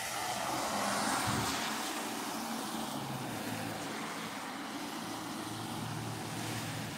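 Road traffic on a wet, flooded street: vehicle tyres hissing over the water-covered road under a low engine hum, the hiss swelling about a second in and then settling.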